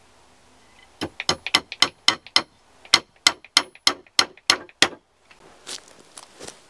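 Steel hammer driving a nail into thin round wooden poles: about a dozen sharp ringing blows, roughly three a second, with a short pause partway through.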